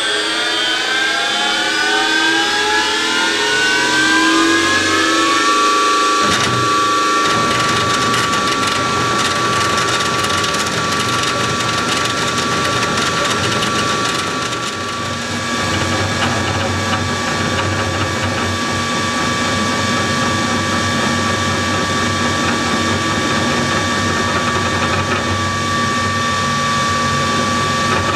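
Novakon NM200 benchtop CNC mill cutting wood with a tapered carving bit: a motor whine rises in pitch over the first five seconds or so, then holds at a steady high tone over a rough, rattling cutting noise.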